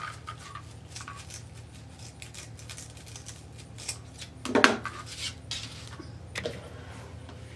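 Scissors snipping a plastic zip tie on a metal wire wreath frame, with light clicks and clinks from the frame. There is one louder clatter about halfway through as the wreath is turned over.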